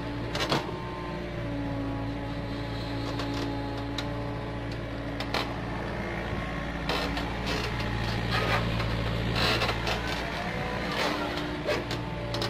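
Komatsu PC45 mini excavator's diesel engine running steadily as the arm and bucket work, its note shifting a little as the load changes, with scattered knocks and scrapes from the bucket digging into soil.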